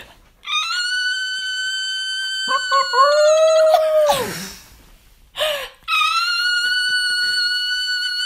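Rottweiler puppy howling: long, high howls held on a steady pitch, with a lower howl about three seconds in that rises and then falls away, and a brief one just after five seconds.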